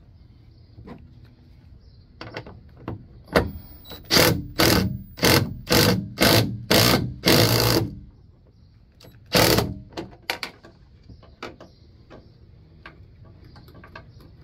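Cordless drill tightening a bolt into the bed extender bracket in short trigger pulls. About seven quick bursts come in a row, the last one longer, then one more burst a second and a half later.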